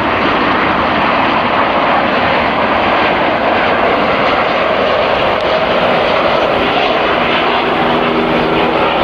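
Jet engines of an American Airlines Boeing 777-200ER on final approach, a steady loud rushing noise as the twin-engine airliner passes low toward touchdown. A few steady low tones come in about two thirds of the way through.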